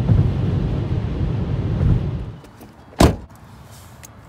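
Car road and wind noise heard from inside the cabin for about two seconds, then a key rattling into a metal door's lock with small clicks, and one loud clunk about three seconds in as the lock is turned.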